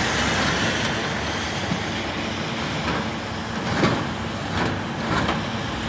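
Heavy demolition machinery running steadily, with a few short knocks or clanks about three to five seconds in.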